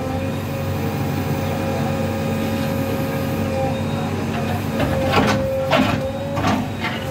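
JCB 3DX backhoe loader's diesel engine running steadily with a constant whine, as its bucket breaks a brick wall; near the end come several sharp crashes and knocks of falling bricks and masonry.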